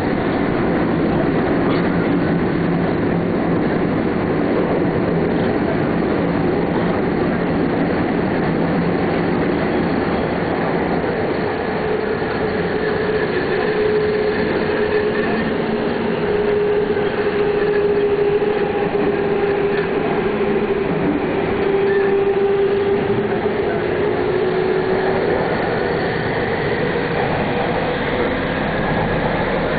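Subway train running, heard from inside the passenger car: a steady rumble and rail noise with a humming tone that drifts slightly in pitch.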